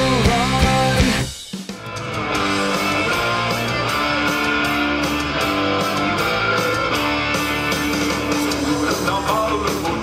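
Background music: a rock song with singing that cuts off about a second and a half in, then a different track led by guitar.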